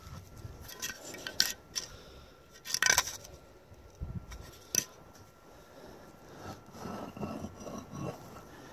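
A metal spirit level being set down and moved on a wooden board, giving a few sharp clicks and knocks, loudest about three seconds in. Later, hands scrape and rustle in loose sand as the board is shifted.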